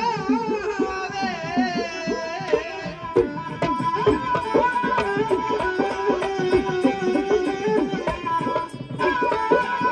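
Background music: a Punjabi song with tabla-like hand drumming and a wavering melody line over the first few seconds, then held instrumental notes over the drumming.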